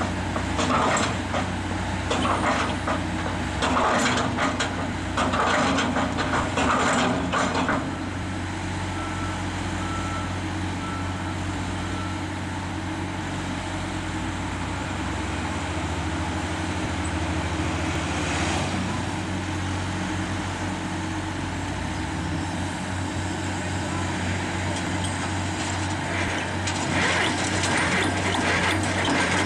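Diesel engine of a tracked auger drilling rig running steadily, with clanking and rattling in the first several seconds as the auger works in its steel casing. A short run of beeps sounds around ten seconds in. Near the end a rattle rises as spoil drops off the auger into a loader bucket.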